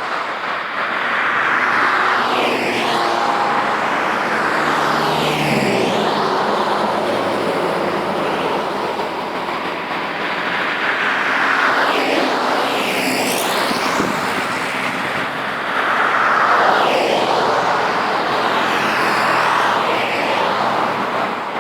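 Road traffic: vehicles passing by one after another every few seconds, each pass a swelling and fading rush of tyre and engine noise. About six seconds in, one engine's pitch drops as it goes past.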